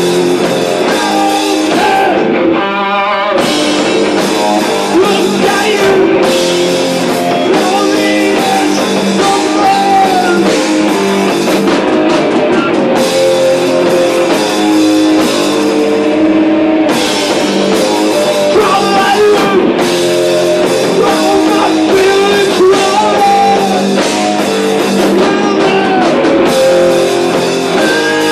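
Sludge metal band playing live: distorted electric guitar, bass guitar and drum kit, loud and steady.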